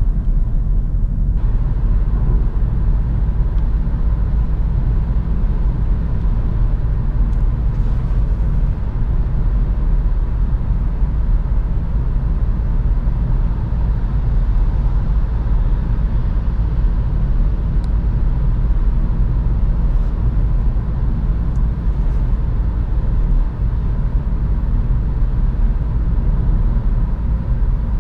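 Cabin noise inside a VW Golf Sportsvan 1.5 TSI cruising at steady speed: a constant low rumble of road, tyres and engine.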